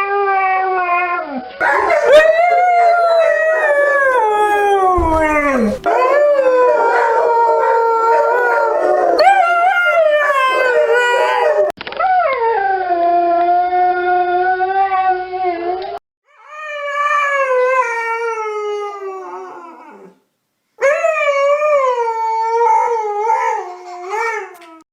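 Siberian husky howling in long, wavering calls that glide up and down in pitch, some falling away at the end. The howls come in several spliced segments that cut off abruptly.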